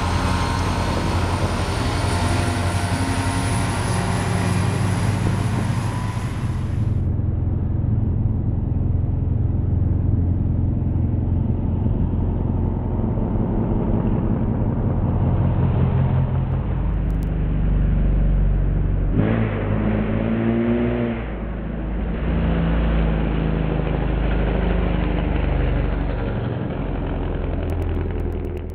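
A commuter train running past at a level crossing, a rumble with a thin high tone slowly rising. After an abrupt cut about seven seconds in, a sport motorcycle engine runs and revs as the bike rides by, climbing in pitch around twenty seconds in.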